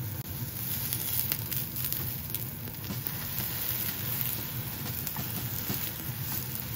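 Stuffed fried tofu pouches (aburaage) pan-frying in oil: a steady sizzle with many small crackles and pops.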